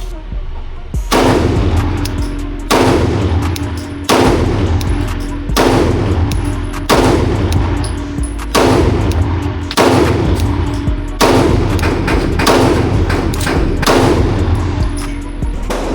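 9mm Glock pistol fired in slow, steady single shots, about eleven rounds at roughly one every second and a half, each crack followed by a short ringing tail.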